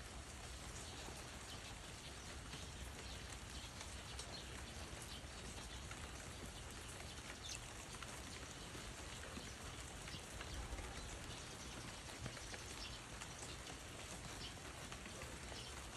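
Steady light rain, with scattered drops pattering.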